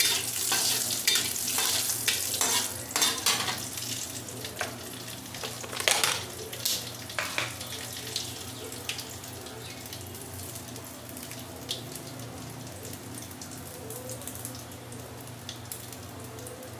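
Mustard seeds, dried red chillies and urad and chana dal frying in hot oil in a kadhai: a sizzle full of crackles and pops, with a metal spoon stirring through the pan in the first few seconds. The sizzle and crackling thin out and grow quieter over the second half.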